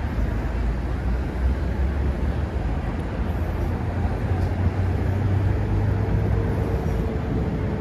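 Steady low rumble of city road traffic, with a faint whine joining about six seconds in.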